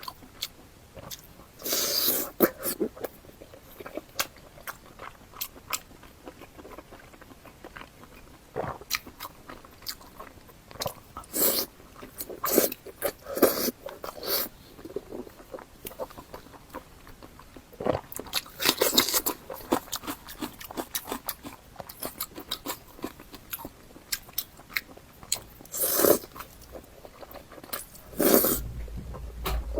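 Close-miked mukbang eating sounds of braised pork belly: irregular wet chewing, biting and mouth clicks, with several louder bites scattered through.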